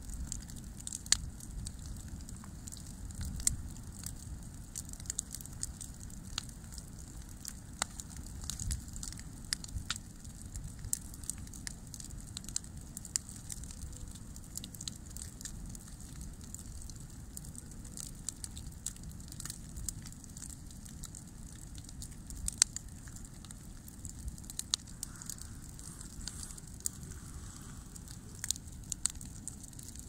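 Bonfire of dry branches burning, with frequent irregular sharp crackles and pops from the burning wood over a steady low rumble.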